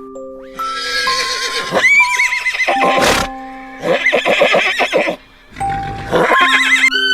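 A horse whinnying several times, each call trembling in pitch, over background music of slow held notes.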